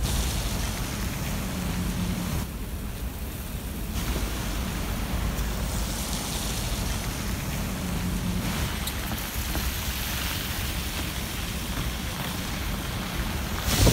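Steady city traffic noise, a continuous wash of cars and trucks on downtown streets. Right at the end, wind starts buffeting the microphone.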